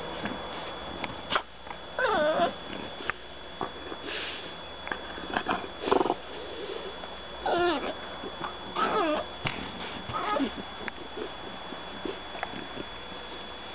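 French bulldogs play-fighting, with about five short whining, grumbling calls that wobble in pitch, and snuffling and small knocks between them.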